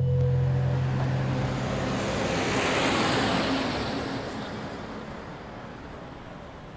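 A city bus passing close by on the road: a low engine drone, then a rushing swell of tyre and engine noise that peaks about three seconds in and fades away.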